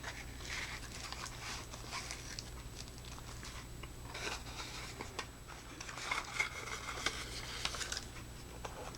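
Faint rustling and crinkling of small packaging with scattered soft clicks, as flashlight accessories are taken out and handled, over a steady low hum.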